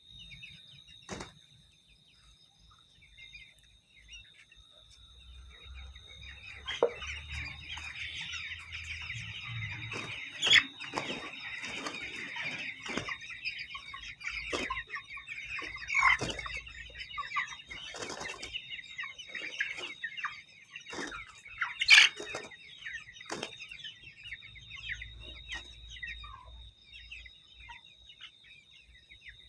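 A group of birds calling and chattering together, with wing flaps and several sharp knocks. The chatter builds after a few seconds and fades near the end, over a steady high-pitched whine.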